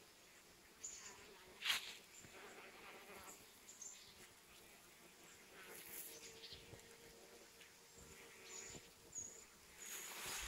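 Honeybees buzzing faintly as they forage among flowers, with a steady hum holding for a few seconds in the middle. A brief sharp rustle comes about two seconds in, and louder rustling near the end.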